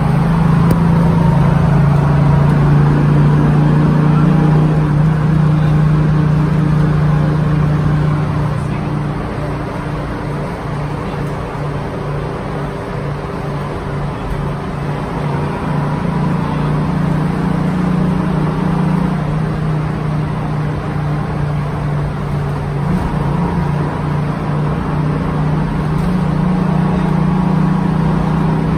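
Interior engine and road noise of a 1957 GMC transit bus under way: a steady low engine hum over road rumble. The hum eases off about a third of the way in and swells again in the last few seconds.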